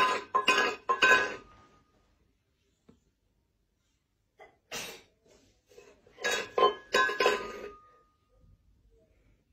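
Light ringing clinks in quick runs of several strikes: one run fades out about a second in, a single clink comes near the middle, and another run follows a second or so later.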